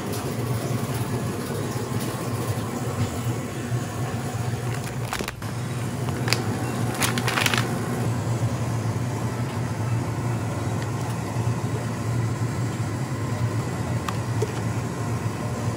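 Supermarket ambience: a steady low hum of store ventilation and refrigeration, with a few brief clicks or rattles about five to seven seconds in.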